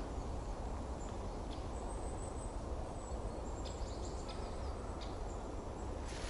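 Steady outdoor background noise with a low rumble, with a few faint light ticks scattered through it.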